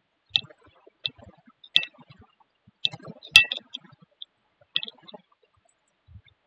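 Computer keyboard keys and mouse buttons clicking: about a dozen short, irregular taps, the loudest a little over three seconds in.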